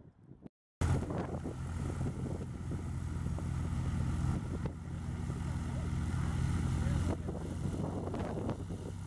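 Piston engine of a single-engine propeller trainer taxiing at low power, running steadily. It cuts in abruptly about a second in and eases off slightly about seven seconds in.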